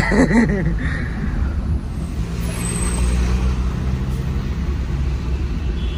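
Small car's engine and tyre noise heard from inside the cabin while driving: a steady low drone.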